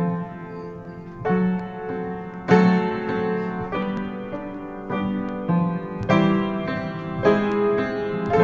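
Piano playing slow sustained chords, a new chord struck roughly once a second.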